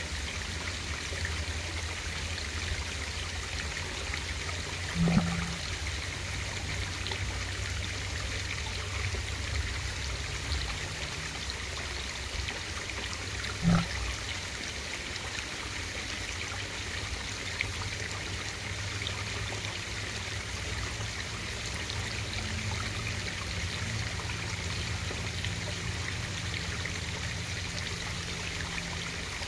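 Steady flowing-water noise picked up by a camera submerged in a pond, with a low steady hum underneath. Two brief knocks come about five and fourteen seconds in, the second the louder.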